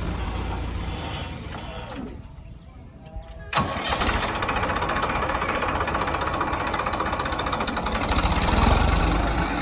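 Diesel engine of heavy machinery running, fading for a moment, then cutting back in sharply about a third of the way through. It runs on with an even beat and swells slightly near the end.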